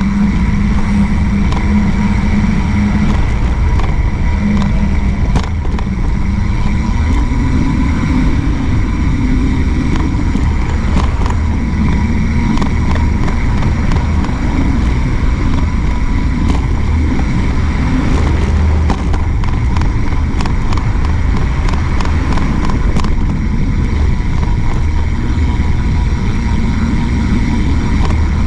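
Steady rumble of riding a mountain bike along a concrete sidewalk, heard from a handlebar-mounted camera: wind buffeting the microphone and tyre noise, with cars passing on the road alongside and scattered small clicks.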